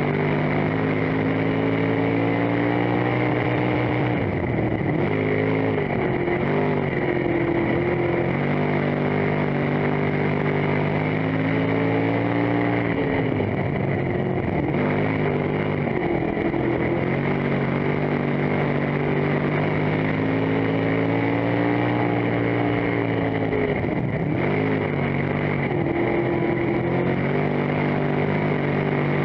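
Dirt-track stock car engine heard from inside the car, running hard and steady down the straights. Its pitch drops and climbs back three times, about every ten seconds, as the throttle comes off and back on through the turns.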